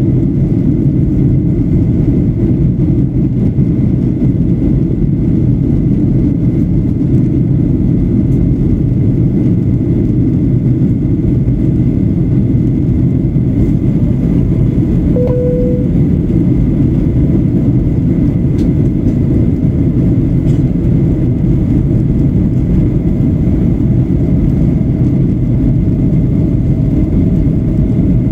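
Steady cabin noise of a Boeing 737-800 on approach, heard from a seat over the wing: a deep, even rumble of its CFM56 jet engines and airflow, with a faint thin whine above it. A brief single tone sounds about halfway through.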